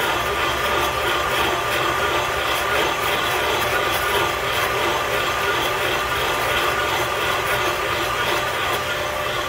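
Machine spindle turning a counterbore cutter into a Mopar 452 cylinder head, cutting the pocket for a new valve seat insert. The machine and cut make a steady, unchanging noise with a few faint held tones.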